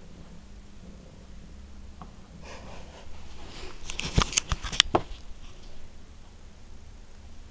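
LEGO cargo train colliding with plastic freight wagons: a soft rattle of moving wheels, then a quick cluster of sharp plastic clicks and clatters about four seconds in as the bricks and wheels knock together.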